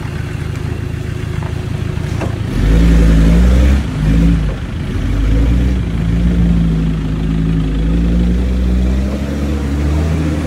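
Off-road race truck's diesel engine revving hard under load in deep mud. It surges sharply about two and a half seconds in, then keeps pulling with the revs rising and falling.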